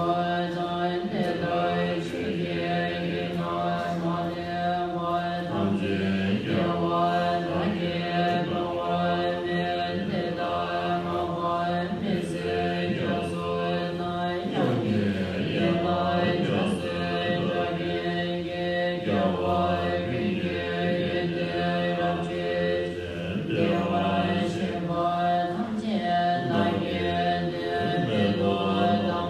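Many voices chanting a Tibetan Buddhist long-life puja liturgy together, a low, steady group chant whose pitch shifts now and then between phrases.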